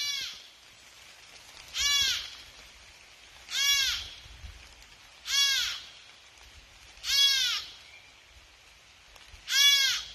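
Deer fawn bleating for its mother: a series of high, nasal calls about every two seconds, each one rising and then falling in pitch.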